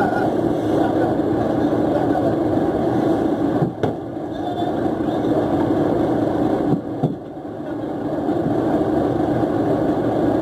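Fishing boat's engine running steadily, with two brief knocks about four and seven seconds in.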